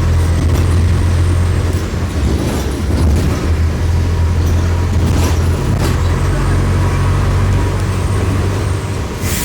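Mercedes-Benz OM-904LA four-cylinder turbodiesel of an OF-1418 bus running steadily as the bus drives, its low engine note shifting slightly a couple of times, with a few sharp clicks and knocks over it. A hiss starts right at the end.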